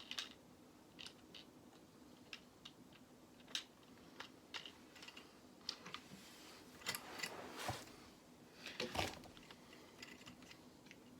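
Small plastic Lego pieces clicking and rattling faintly as they are handled and tried against each other, in scattered single clicks with a few louder ones.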